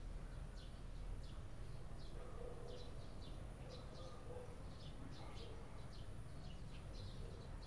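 Faint chirping of small birds: short, high, downward notes repeating irregularly, two or three a second, over a steady low background hum.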